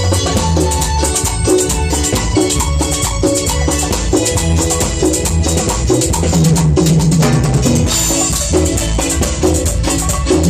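Latin dance orchestra playing an instrumental passage. Drum kit and maracas keep a fast, even beat under a steady bass line and a short melodic figure that repeats.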